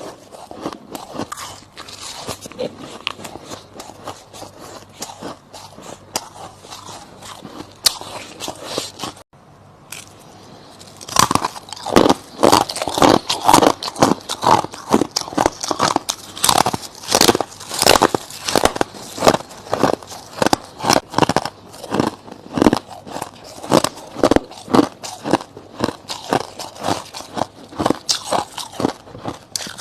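Close-up mouth sounds of soft frost ice being bitten and chewed. Lighter crackly crunching at first, a short pause near ten seconds, then loud, rhythmic chewing crunches, two or three a second.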